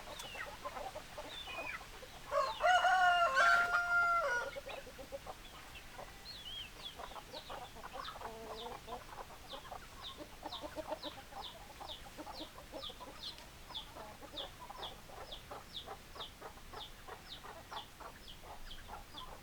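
Chickens: a rooster crows once, loud and drawn out, about two and a half seconds in, among hens clucking. Through the second half, short high peeps repeat about twice a second under the clucking.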